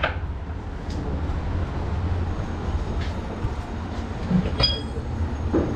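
A steady low rumble, with a few light knocks of butchering at a wooden chopping block and one sharp metallic clink.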